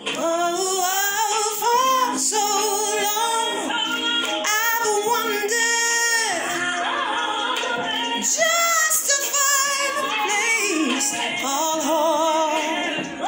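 A woman singing long, sliding runs with wide vibrato and no clear words, with music underneath.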